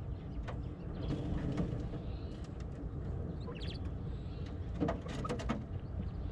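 Coturnix quail giving soft, scattered short calls and chirps, with a small cluster of them about five seconds in, over a steady low background rumble.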